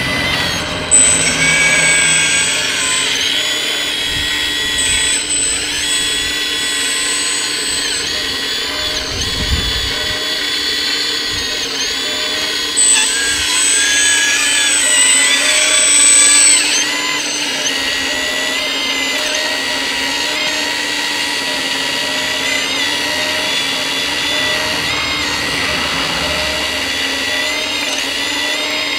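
Hydraulic pump of a Kabolite 336 RC excavator whining steadily while the boom and bucket work, louder with a high whistle about a second in and again from about thirteen to seventeen seconds as the valves are worked.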